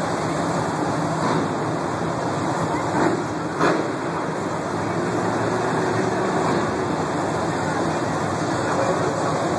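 Monster truck engines running at idle, a steady low rumble heard across a stadium under crowd murmur, with two brief louder sounds about three seconds in.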